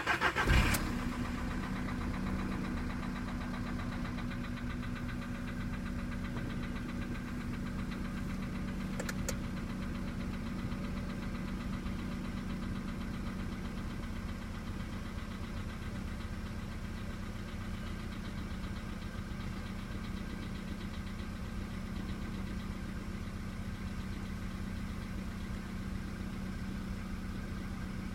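Volkswagen Polo Sedan's 1.6-litre CFNA four-cylinder petrol engine on a cold start: it catches and flares briefly, then idles steadily with a knock and a growl, the well-known cold-start knock of the CFNA engine that appeared with the cold weather.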